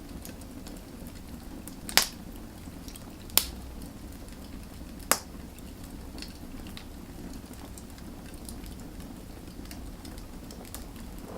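Wood fire burning: a steady low rush from the flames with crackling pops, three sharp loud ones about two, three and a half and five seconds in, and fainter ticks between them.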